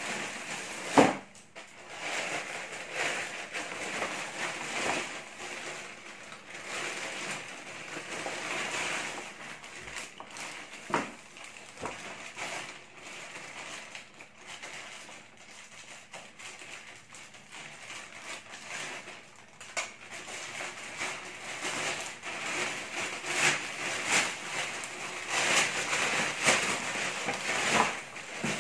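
Large plastic courier bag crinkling and rustling continuously as it is handled, cut along its taped seam with scissors and pulled open, with scattered sharp crackles.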